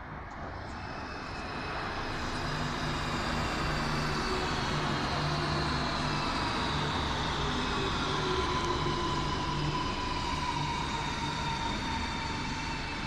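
Renfe Cercanías electric commuter train pulling into an underground station and braking to a stop, its motors giving a whine of several tones that falls steadily in pitch as it slows. It grows louder over the first couple of seconds as the train comes alongside.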